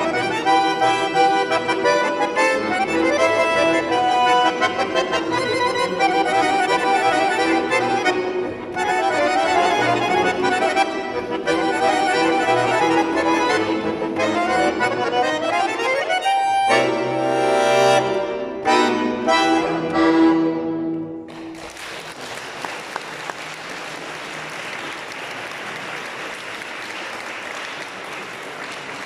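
Bayan (Russian button accordion) playing a fast solo passage that closes with a series of separate loud chords. The audience then applauds through the last seven seconds or so.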